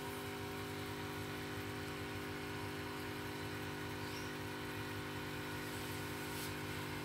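A steady electrical hum, many evenly spaced tones held constant, over a low hiss.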